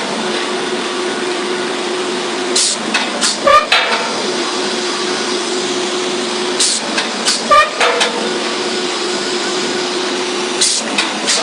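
Free-fall hammer piling rig at work: a steady hum from the rig, broken about every four seconds by a burst of sharp metallic clanks with ringing and one heavy strike. Two full cycles, with a third beginning near the end.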